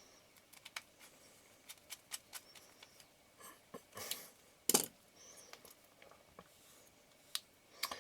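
Faint scattered clicks and taps of small metal tools and the parts of an Ai-Nikkor 24mm f/2.8 lens being handled at a workbench during final reassembly, with one sharper knock nearly five seconds in.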